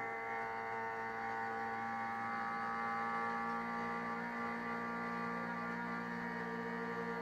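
Race car engine heard from the cockpit, held at steady high revs as a continuous drone with no gear change.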